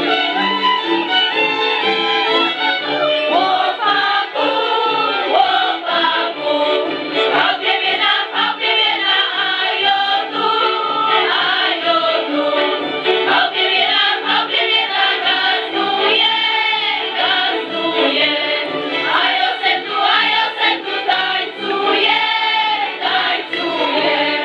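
A group singing a Żywiec highland folk dance song together, with a fiddle playing along.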